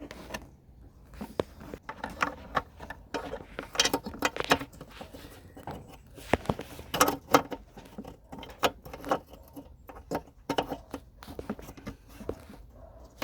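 Irregular small clicks and taps of hand work at a motorcycle headlight housing: a Phillips screwdriver turning the retaining screw back in, with small parts knocking against the plastic and metal.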